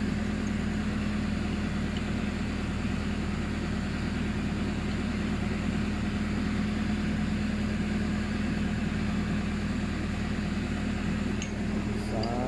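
Excavator's diesel engine running steadily at idle, a constant low hum.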